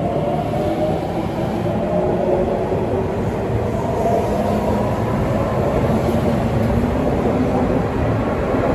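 Sagami Railway 8000-series electric train running through the station with a steady rumble of wheels and running gear. Faint whining tones from the traction motors sit over the rumble.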